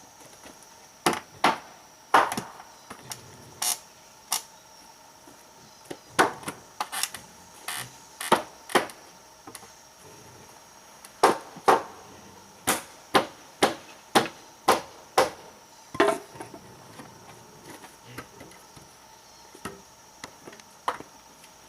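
A hand tool striking wood: about twenty sharp knocks in short, uneven runs, with a pause of a couple of seconds partway through and a few weaker knocks near the end.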